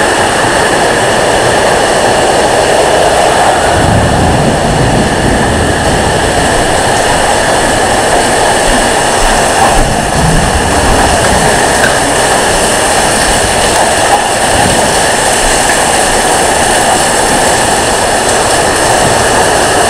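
Heavy rain pouring down in a loud, steady rush during a violent thunderstorm, with wind and a couple of low rumbles about four and ten seconds in.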